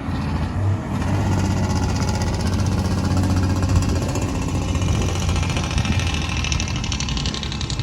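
A heavy engine running steadily, with a low hum and a fast, even rattle over it.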